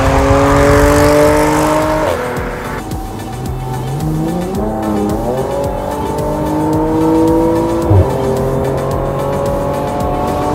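2010 Audi S4's supercharged 3.0-litre V6 through a custom-fabricated exhaust, pulling hard through the gears. Its pitch climbs steadily, drops at an upshift about two seconds in, climbs again, and drops at another shift with a short thump near eight seconds.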